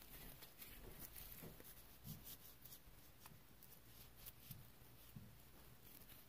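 Faint scratchy rustling of a paper towel, wet with wax and tar remover, being rubbed over a steel wrench by a gloved hand, in short scattered strokes.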